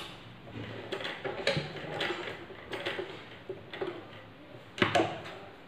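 Sewing machine stitching slowly through cloth, a run of uneven mechanical clicks and ticks, with one sharper knock near the end.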